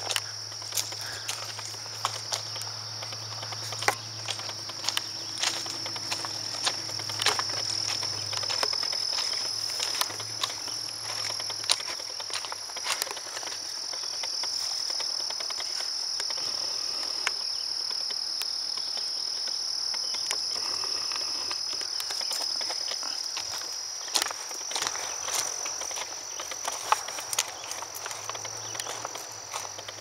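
Steady high-pitched insect chorus, with irregular footsteps and short clicks as someone walks through tall grass.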